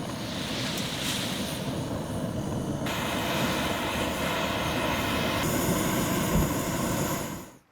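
Straw fire burning under a grill of pork belly, a steady rushing noise with fine crackling as the flames come up.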